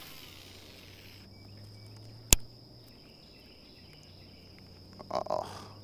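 Insects buzzing steadily in the background at one high pitch, with a single loud, sharp click a little over two seconds in and a short, louder burst of noise about five seconds in.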